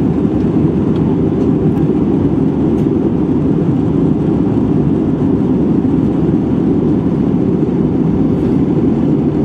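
Steady low roar inside the cabin of an Airbus A320-232 in flight: engine and airflow noise, heavy in the low end, with no change in pitch or level.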